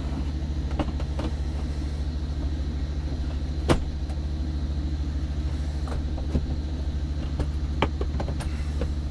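Steady low drone of an idling diesel engine heard inside a truck's sleeper cab, with scattered light clicks and one sharp knock a little past a third of the way in.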